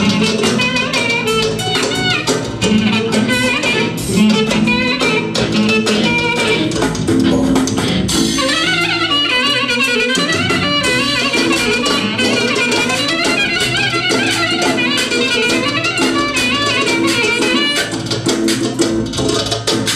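Live dance music from a band: a clarinet plays a fast, ornamented melody over electronic keyboard and drum kit, with a steady beat. The melody grows busier about eight seconds in.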